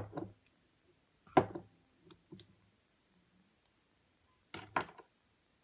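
A few short clicks and taps from handling a partly disassembled Canon 70D DSLR body and small hand tools. There is one click right at the start, the loudest about a second and a half in, two faint ones soon after, and a quick pair near the end.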